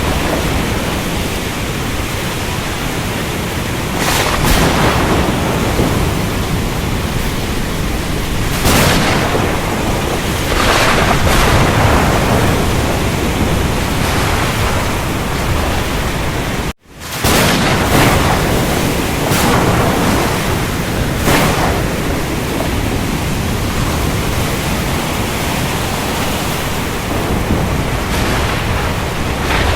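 Storm at sea: a steady rush of rain and surf with deep rumbling, swelling louder every few seconds as waves break or thunder rolls. The sound cuts out completely for a split second about 17 seconds in.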